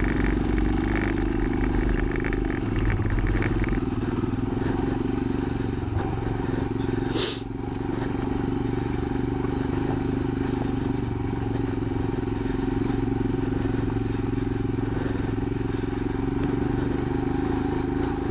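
Royal Enfield Himalayan's single-cylinder engine running steadily as the motorcycle rides along a dirt trail. There is one brief sharp sound about seven seconds in.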